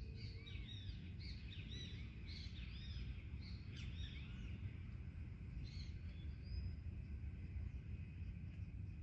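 Forest birds chirping, many short arching calls crowding together in the first half and thinning out after, over a steady low rumble of background noise.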